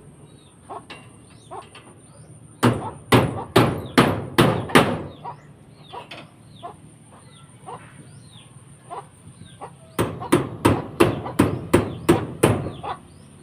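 Hammer blows in two runs of steady strikes, about two a second: around six starting about two and a half seconds in, then around nine starting about ten seconds in. This is typical of nailing or knocking a satellite dish mount into place. Small birds chirp faintly between the runs.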